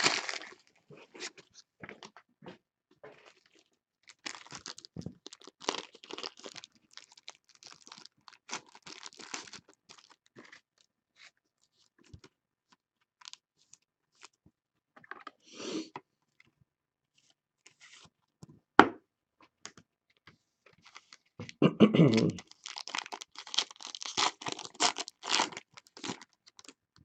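Plastic-foil trading-card pack wrapper crinkling and tearing, with the light rustle of cards being handled. Scattered crackles give way near the end to a dense run of crinkling as a pack is torn open, with one sharp click about two-thirds through.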